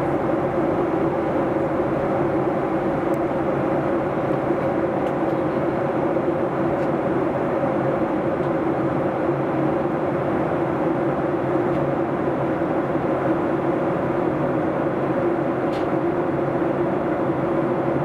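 Steady cabin noise inside a Boeing 737-800 in flight: an even rush of air with a steady hum from its CFM56-7B turbofan engines.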